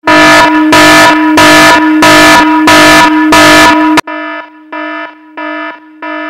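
Loud electronic alarm-like beeping, a steady-pitched buzzy tone repeating in quick pulses. After about four seconds it turns quieter and thinner, beeping about twice a second.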